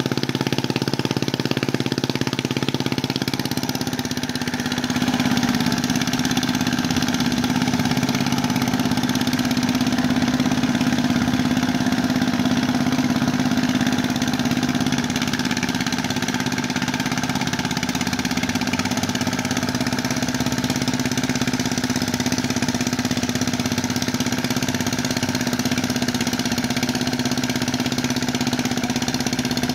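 A mud boat tiller's engine runs steadily as the machine works the flooded paddy. Its note changes slightly about four seconds in, then holds.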